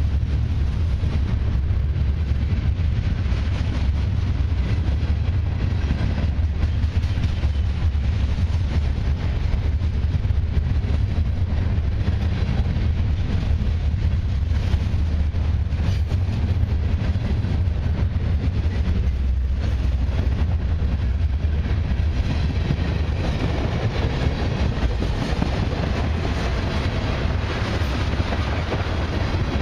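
Freight train cars rolling past: a steady rumble and rattle of steel wheels on the rails, with faint clicks from the wheels. The higher rattle grows a little stronger from about two-thirds of the way in, as tank cars replace open-top hoppers.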